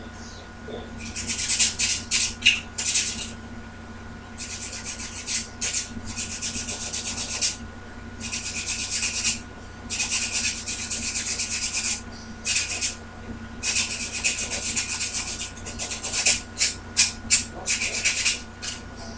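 Metal contacts being scrubbed by hand with an abrasive to expose fresh metal for soldering, in several runs of rapid scraping strokes with short pauses between them.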